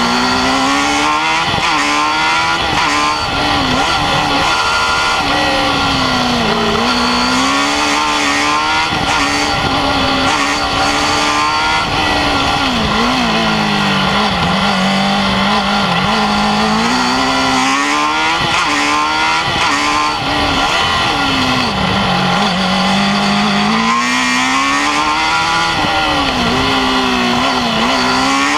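UGR-18 Formula Student race car's engine heard onboard at speed, the revs climbing and then dropping off again and again as the car goes from straight to corner.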